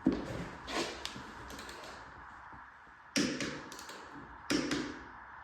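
Hand tools knocking and clinking during motorcycle work: a few sharp knocks, some in quick pairs, with pauses between.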